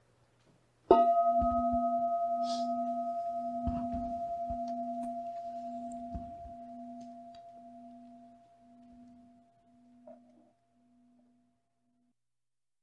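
A singing bowl struck once about a second in, ringing with a clear tone over a lower hum that throbs about once a second, fading away over some ten seconds. It is the bell that opens a period of silent meditation.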